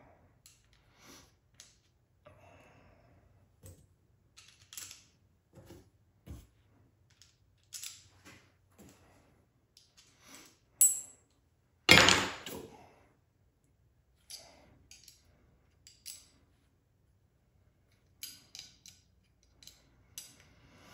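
Small rifle parts, a 10/22 barrel and the kit's aluminium V-block, being handled and fitted by hand: scattered light clicks, taps and scrapes, with one louder knock and a short scraping rattle about twelve seconds in.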